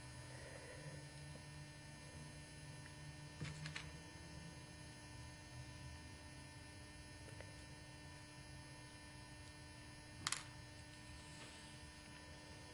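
Low steady electrical hum over quiet room tone, with a few faint clicks about three and a half seconds in and one sharper click about ten seconds in.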